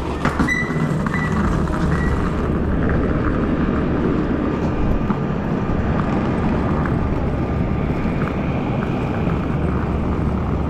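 Steady drone of aircraft engines running, with a constant low hum underneath and a sharp click about half a second in.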